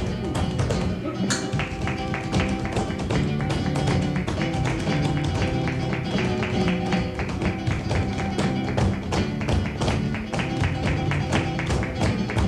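Flamenco seguiriyas on acoustic guitar, with rapid percussive taps of the dancers' heeled footwork (zapateado) on the stage throughout.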